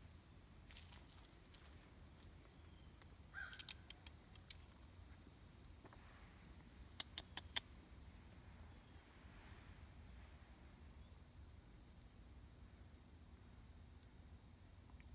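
Faint, steady high-pitched insect chirring, with a few short sharp clicks at about four seconds in and again at about seven seconds in.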